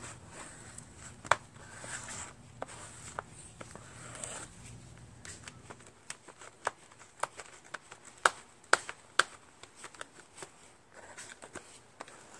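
A flat metal scraper blade stirring and smearing stiff JB Weld epoxy on a paper plate, giving irregular sharp taps, clicks and scrapes that come thickest in the second half.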